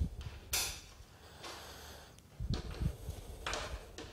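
Two short sharp breaths through the nose close to the microphone, about half a second in and again around three and a half seconds, with a few low handling bumps between them while a solar panel's end clamp is tightened onto its aluminium frame.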